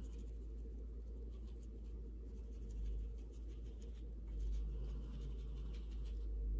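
Gloved fingers rubbing and scratching across the textured wax surface of an encaustic panel: faint, irregular dry scratching strokes over a steady low hum.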